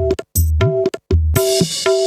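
Drum-heavy music played loud through a Peavey power amplifier and speakers for a sound test: quick pitched hand-drum strokes over deep bass thumps that bend in pitch, with a cymbal crash about one and a half seconds in.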